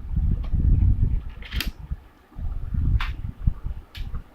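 A laptop battery being fitted: three sharp plastic clicks, spaced about a second apart, over a low uneven rumble of handling noise.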